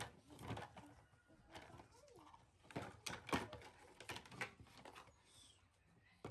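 Hard plastic toy dump truck being handled on a wooden table, giving a scatter of separate clicks and knocks as its tipper bed is lifted and moved.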